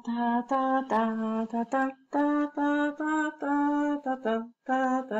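A woman's voice singing a short tune: a string of separate held notes that step up and down in pitch, with brief breaks between them.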